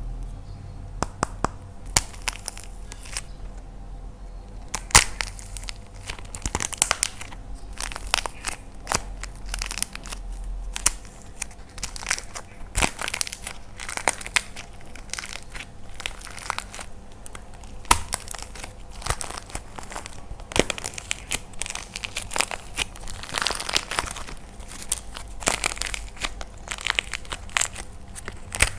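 Dried, painted plaster clay being cracked and crushed by hand: an irregular run of sharp crackles and crunches that grows denser about halfway through.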